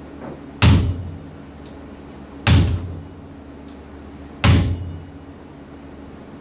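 Three heavy knocks, evenly spaced about two seconds apart, each dying away over about half a second, over a steady low hum.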